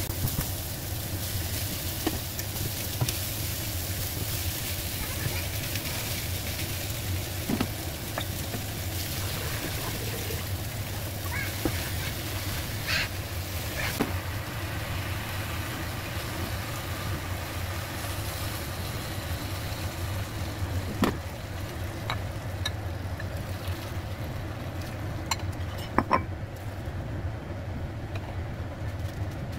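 Food sizzling in a hot wok while being stir-fried, with occasional sharp knocks and scrapes of the spatula against the pan, over a steady low hum. The sizzle thins out over the last several seconds.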